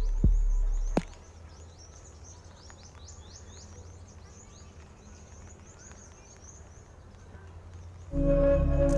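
Many small birds chirping in the trees, a dense stream of quick high calls over faint outdoor ambience. A louder passage with low thumps stops about a second in, and near the end music of sustained ringing tones like a singing bowl starts.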